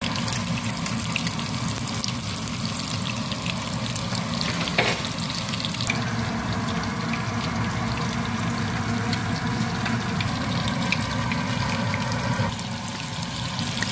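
Hot oil sizzling and crackling steadily in a wok as food fries, with small spits and pops throughout; the sound steps in level twice where the picture cuts.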